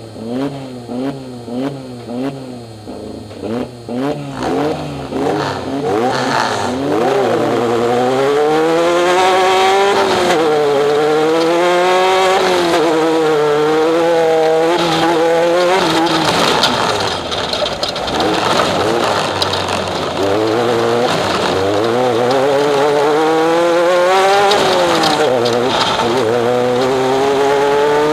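Off-road race vehicle's engine at racing speed. At first the revs rise and fall about twice a second, then it pulls hard and stays high with a wavering pitch. The revs drop briefly about two-thirds of the way through and climb again.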